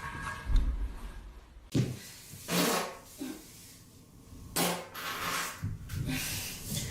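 A person breaking wind: several short farts in a row, with pauses between them.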